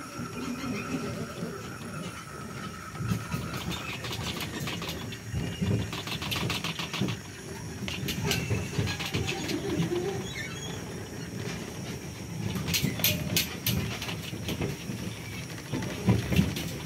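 Safari tram moving along its trail: a steady low rumble with bursts of rattling clicks, once a few seconds in and again about two-thirds of the way through.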